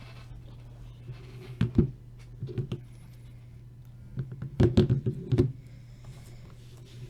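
Things being handled on a tabletop: a few sharp knocks about one and a half seconds in, then a louder clatter of knocks around the middle, over a steady low hum.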